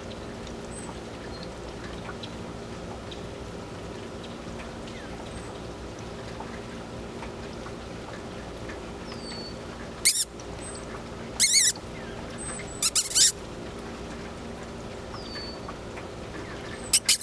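Steady rain and dripping outdoors with a few faint bird chirps, broken by several loud, short, harsh noises in the second half.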